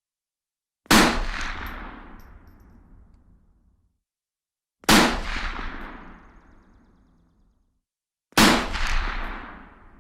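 Three rifle shots a few seconds apart, each a sharp crack followed by a long echoing tail that dies away over two to three seconds.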